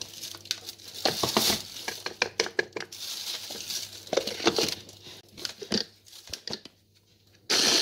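Handling noises of a plastic mini-chopper bowl, with clicks, taps and rustling as its motor unit is set on top. A louder rushing noise starts abruptly near the end.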